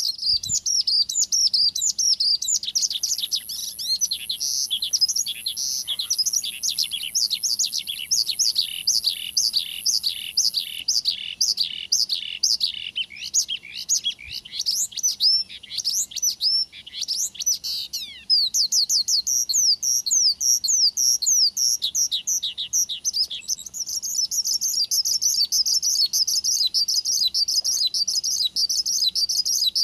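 Male Javan bush lark (branjangan) singing a fast, continuous song of rapid sweeping whistled notes. A high buzzy trill runs above the notes for several seconds near the start, and the notes grow denser and quicker in the last few seconds. This is the vigorous 'gacor' song used as a lure to set a captive branjangan singing.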